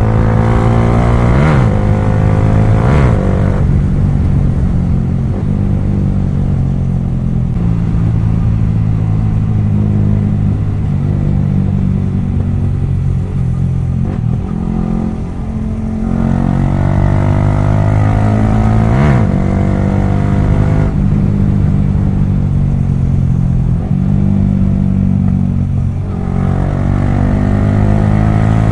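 Yamaha R15 V3's single-cylinder engine running loud through a modified exhaust with both dB killers removed, under way, its revs rising and falling several times.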